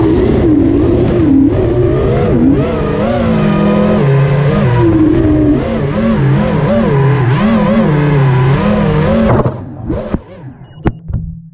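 GEPRC AX-5 FPV quadcopter's brushless motors and 5040 Dalprop propellers whining, recorded by the onboard camera, the pitch rising and falling constantly with throttle. About nine and a half seconds in the motors spool down and stop as the quad lands, with a few short blips and a sharp click near the end.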